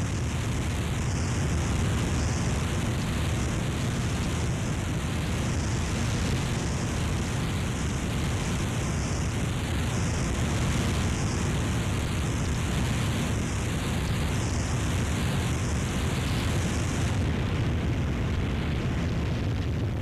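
Harsh noise wall: a dense, unchanging wall of distorted static filling the whole range from deep rumble to hiss, with a slow wavering sweep in the upper part. About 17 seconds in, the highest hiss drops away.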